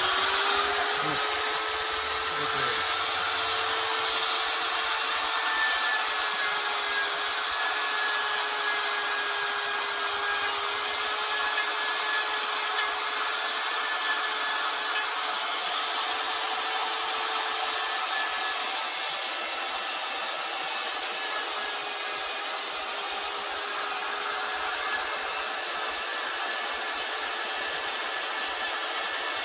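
Handheld die grinder with a Saburrtooth carbide flame burr running at steady speed and grinding into a carved wooden owl's eye. A constant motor whine sits over the rasp of the burr cutting wood.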